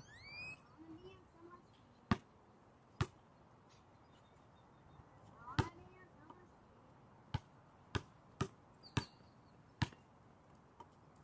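Basketball bouncing on a hard outdoor court: single sharp bounces about two, three and five and a half seconds in, then a quicker run of dribbles from about seven to ten seconds in. A short high rising squeak opens it.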